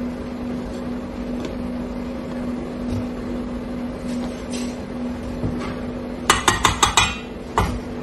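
A steady low hum, then about six seconds in a quick run of five sharp metallic clinks and, half a second later, one more knock: utensils and a squeeze bottle against a stainless steel bowl and counter.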